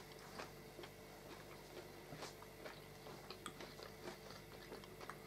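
Quiet eating: faint, scattered clicks of metal forks against plates and soft chewing, over low room tone.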